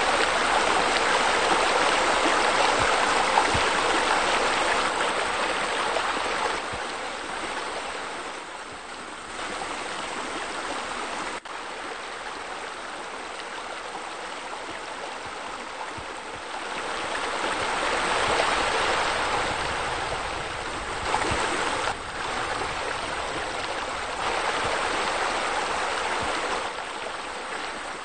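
Steady rush of running, splashing water from a pool's rock waterfall and arcing fountain jets. Its level shifts up and down in steps several times, with a sudden break about a third of the way through.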